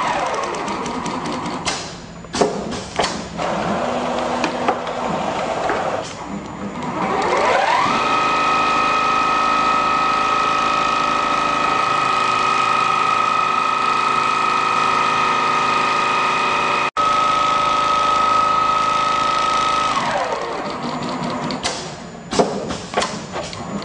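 CNC pattern sewing machine stitching: after some clicking and knocking it speeds up with a rising whine, sews at a steady high speed for about twelve seconds, then slows with a falling whine, followed by more clicks and knocks.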